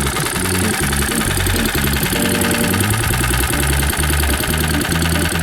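Small 79cc single-cylinder engine of a homemade motorized bicycle running steadily through a small-engine muffler, its low exhaust note wavering in pitch.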